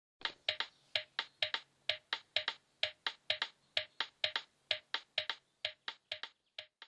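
A quick run of sharp clicks, about four or five a second in a slightly uneven rhythm.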